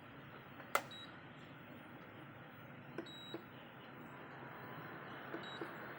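Induction stove running with its cooling fan giving a steady faint whir, broken by a sharp click just under a second in and a few quieter clicks with faint short high beeps later, as of its control buttons being pressed. The stove is heating without the E0 error showing.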